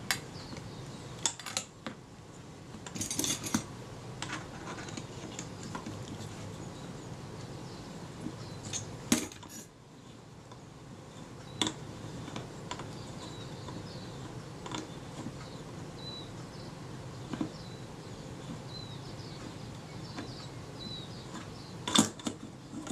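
Small metal clicks and clinks of a spanner working a camera's shutter retainer ring loose. The clicks come a few seconds apart, with the loudest cluster near the end.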